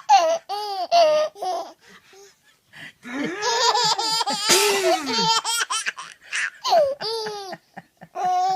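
A four-to-five-month-old baby's belly laughs in short, quick, high-pitched bursts, with a man's pretend sneeze about four and a half seconds in that sets off more laughing.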